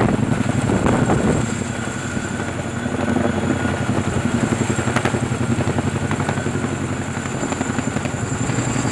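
Chinook tandem-rotor heavy-lift helicopter hovering overhead to pick up logs with its grapple: a steady, fast rotor beat with a high turbine whine above it.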